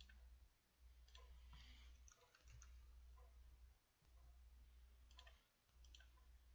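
Faint computer mouse clicks and keyboard keystrokes, a few scattered short clicks over a low hum that drops out briefly every second and a half or so.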